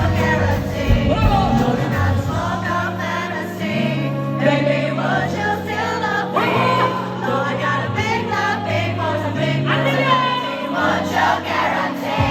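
Music: a song with voices singing over a bass line that moves between held notes.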